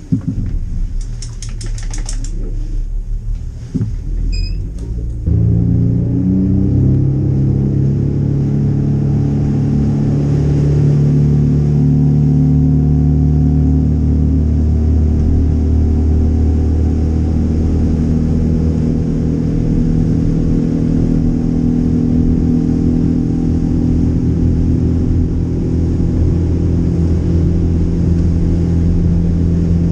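Boat's outboard engine heard from inside the pilothouse cabin: a few clicks over low running for about five seconds, then the engine is throttled up suddenly, its pitch climbing over several seconds as the hull gets on plane, then running steady and loud at cruising speed.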